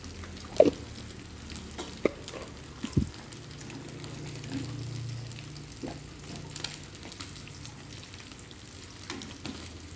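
Stir-fry of squid, pineapple and vegetables sizzling softly in a nonstick pan as it is tossed with wooden chopsticks, with a few sharp clicks of the chopsticks against the pan.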